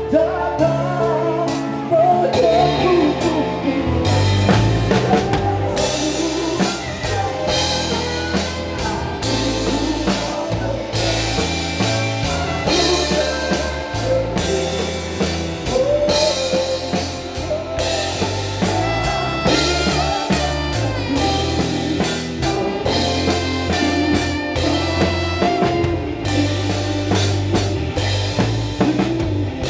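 Live band playing a song: singing over a drum kit, bass and guitar, with steady drumming throughout.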